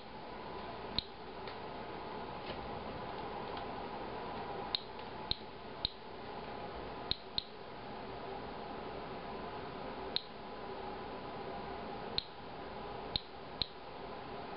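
Inspector Alert Geiger counter clicking at random, uneven intervals, about eleven sharp high chirps, each one a detected ionization event from background radiation and possibly the beer filter sample under it. A steady low hum runs underneath.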